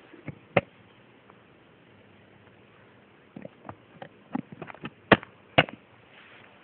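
A round valve box lid being handled and set back onto its box: a sharp knock shortly after the start, then a run of small clicks and scrapes ending in two loud knocks about half a second apart.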